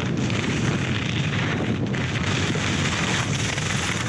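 Wind buffeting a GoPro's microphone while skiing fast, mixed with the hiss of ski edges carving on snow.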